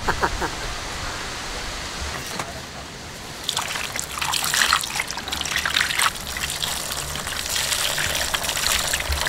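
Water poured from a pot over whole tuna in a basin while they are rinsed by hand, trickling and splashing; the splashing gets louder about three and a half seconds in.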